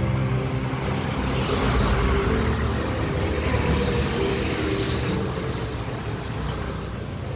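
Steady rushing noise with a low rumble, easing off a little near the end.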